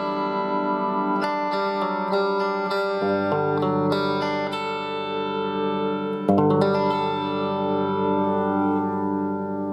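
Electric guitar played through a guitar amplifier: clean chords struck about a second, three seconds and six seconds in, each left to ring out.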